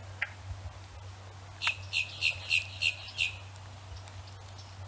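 A bird calling: one short high chirp near the start, then a run of about six quick, evenly spaced high chirps, roughly three a second, lasting under two seconds. A low steady hum sits underneath.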